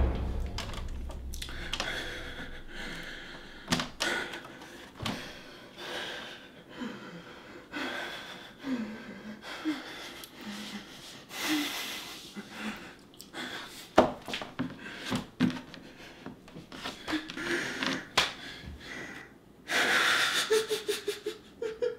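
A man breathing heavily and unsteadily in a quiet room, with short faint whimpers between breaths and a few sharp clicks, the loudest about fourteen seconds in. Near the end comes a long, deep breath.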